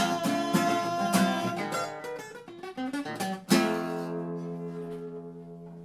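Acoustic guitar strumming the closing bars of a song, ending on a final strummed chord about three and a half seconds in that rings out and slowly fades.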